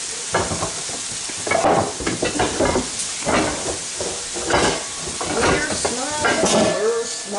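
Food sizzling in a pan on a gas stove, a steady hiss, with irregular clatter and scraping of kitchen utensils and items being handled.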